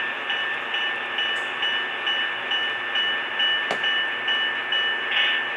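HO scale model diesel locomotive running under its onboard sound system: a steady engine sound from a small speaker that pulses about twice a second, with one sharp click a little past halfway.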